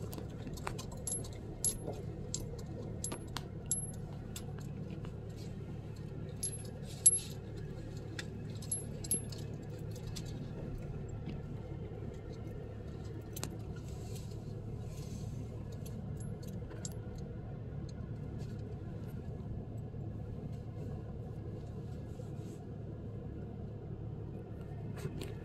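Steady low hum of a pickup's engine and tyres inside the cab while driving slowly. Light metallic jingles and clicks come and go in the first ten seconds or so, then stop.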